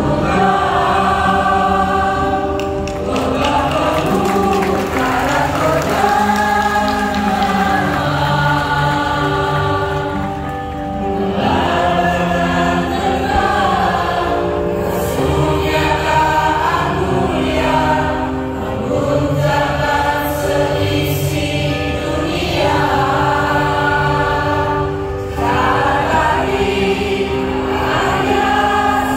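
Choir singing a song in several-part harmony into microphones, in long held phrases with brief breaks between them.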